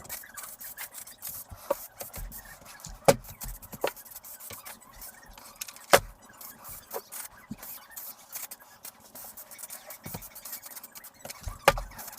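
Scattered clicks, knocks and short squeaks and rubs of an RC truck's plastic chassis and parts being handled, with sharper knocks about three and six seconds in and again near the end.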